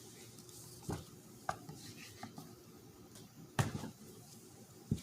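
Scattered clicks and knocks of hard parts and a tool being handled on a car's manual shifter assembly during disassembly, the loudest a sharp knock past the middle.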